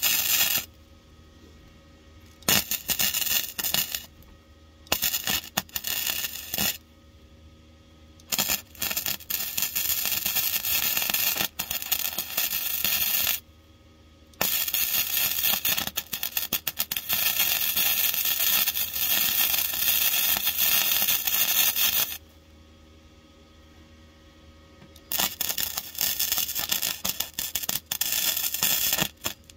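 MIG welder arc crackling and sputtering as a new steel floor pan panel is welded into the car body. It comes in separate runs: short bursts of a second or two and longer beads of several seconds, the longest about eight seconds in the middle, with pauses between them.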